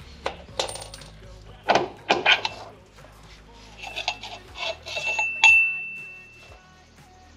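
Metal parts of a threaded-rod bushing press tool clinking and knocking as they are taken off the differential mount in the rear subframe. The loudest is a ringing metal clink about five and a half seconds in that fades over about a second.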